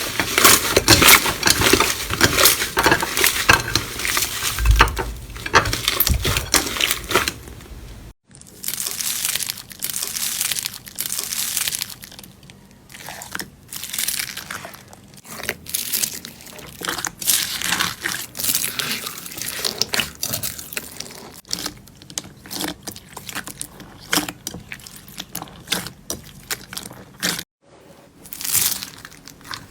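Slime being squeezed, pressed and stretched by hand, making close-up crackling and squelching sounds. The sound is dense and loud at first, then cuts off about eight seconds in and gives way to sparser squishes, with another cut near the end.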